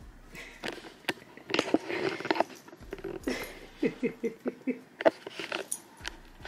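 Small dog pawing, scratching and turning in a plush fabric dog bed as it burrows in, a run of quick scuffs and rustles, with a few short vocal sounds in the middle.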